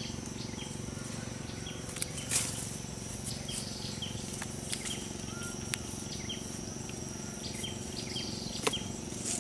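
Rural outdoor ambience: a steady high-pitched insect drone with short chirps repeating every half second or so, and a few brief rustles and clicks, the loudest about two seconds in.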